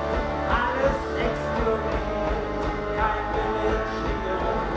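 Live rock band playing, with electric guitars and drums.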